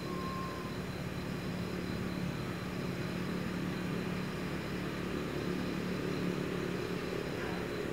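Steady low engine drone from a distant motor, holding an even pitch, with a short high note just after the start.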